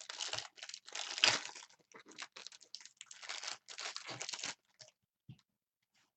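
Trading card pack wrapper being torn open and crinkled: a dense crackle lasting about four and a half seconds, then a few light clicks and rustles.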